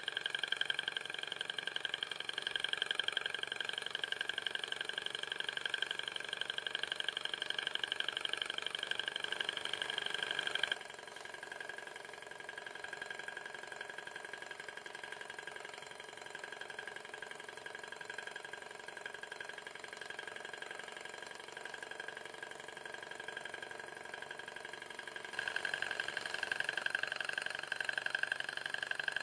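Böhm HB7 In Line Runner hot-air Stirling engine running on its alcohol burner: a steady, fast mechanical whirr from its pistons and twin flywheels. The sound drops noticeably about eleven seconds in and comes back up about four seconds before the end.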